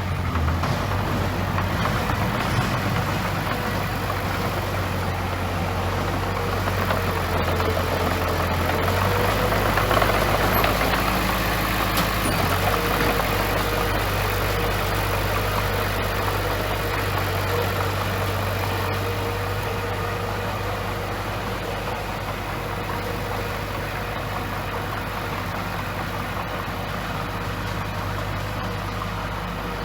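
Heavy diesel engine of a bulldozer running steadily, swelling a little about ten seconds in, then easing off.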